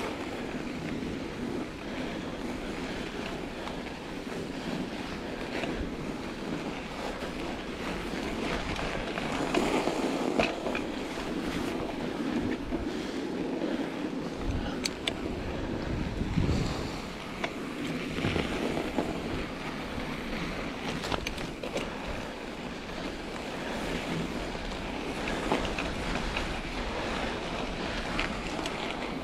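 Mountain bike on Schwalbe Ice Spike studded tires riding over packed snow: a steady rushing noise of tires on snow and wind on the microphone, with scattered clicks and a few louder knocks from bumps in the trail.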